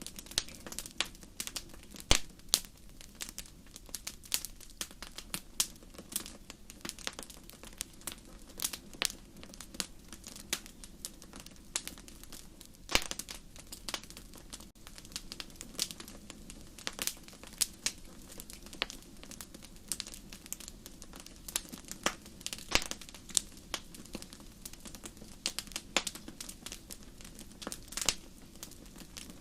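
Campfire burning: burning wood crackling and popping in irregular sharp snaps, several a second, over a steady low rush of flame.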